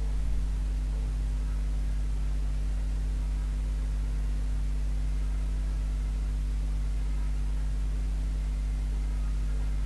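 Steady low electrical hum with an even hiss, unchanging throughout.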